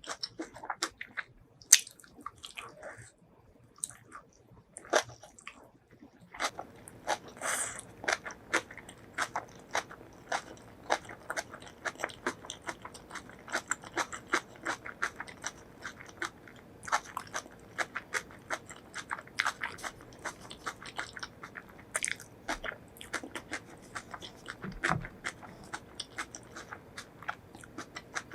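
Close-miked eating sounds: a person biting and chewing crunchy food. The crunching is sparse for the first few seconds, then runs rapid and steady from about six seconds in.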